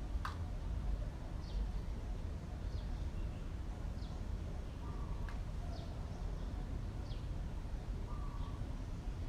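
Outdoor ambience with short, high, falling chirps about once a second from small animals or birds, two brief steady mid-pitched calls, and a sharp click just after the start, all over a steady low rumble.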